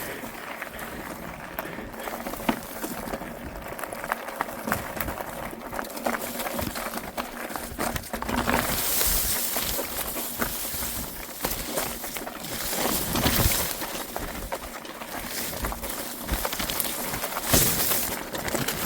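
Rustling and crackling of dense trail-side brush, with scattered small clicks and steps and a few louder swishes of vegetation.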